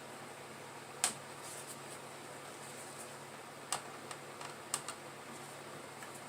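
A few short, sharp clicks and taps of hard parts being handled, over a faint steady hum: one click about a second in, then three more near the end.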